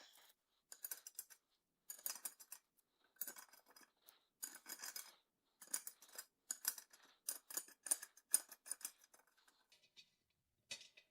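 Short bursts of rapid, light metallic clicking and scraping, roughly once a second, from hand-tool work on a UTV wheel and tire during mounting.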